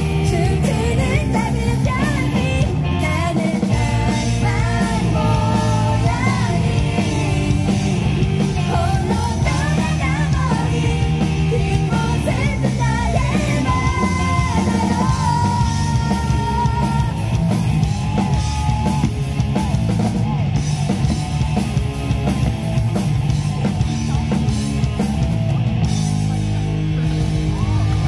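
Live rock band playing: a female lead singer over electric guitar, bass guitar, keyboards and a drum kit, through a PA.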